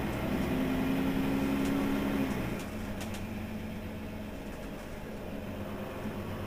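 Mercedes-Benz Citaro city bus's rear-mounted engine idling with a steady hum. About two and a half seconds in, one strand of the hum stops and it settles a little quieter.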